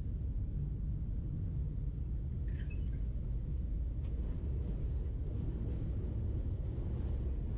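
City street ambience: a steady low rumble of passing traffic, with a brief faint high chirp or squeak a few seconds in.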